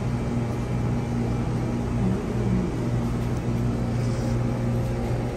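Running machinery humming steadily at a low pitch.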